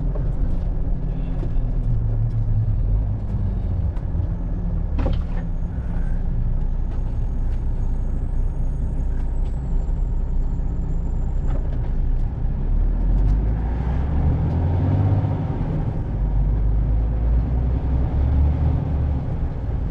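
Diesel engine of an HGV articulated lorry running on the road, heard from inside the cab as a steady low rumble, with a brief sharp sound about five seconds in.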